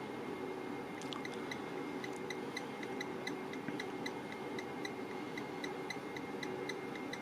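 Amp dyno test bench running a 1-ohm power test on a mono car amplifier: a steady background noise with a rapid, even ticking, about three to four ticks a second, that starts about a second in.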